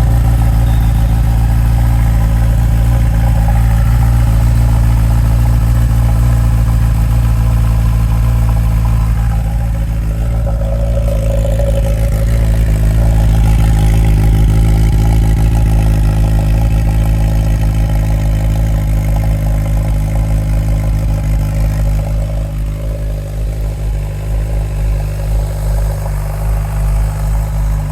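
2018 Honda CB1000R's inline-four engine idling steadily soon after a cold start, with the coolant still cold. Over the last several seconds the idle becomes more uneven and pulsing.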